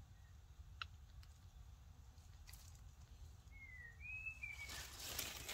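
Faint forest ambience with a low rumble, a single click about a second in, and a short high two-part chirp near the end. Rustling and crinkling start just before the end.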